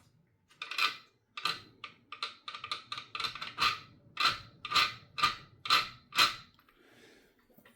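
A run of about a dozen irregular clicks and clatters over six seconds, like hard parts being handled and set down on a workbench.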